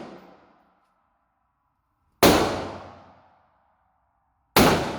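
Two gunshots about two seconds apart, each cracking sharply and echoing away over about a second, with a faint lingering metallic ring after them.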